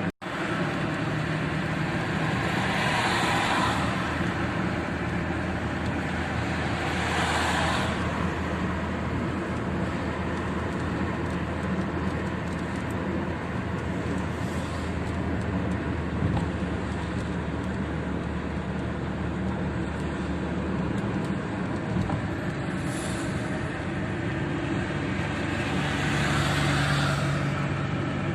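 Rain on a moving car's windshield and body, heard inside the car, together with steady road and engine noise from motorway driving. The noise swells briefly three times, about 3 seconds in, 7 seconds in and near the end.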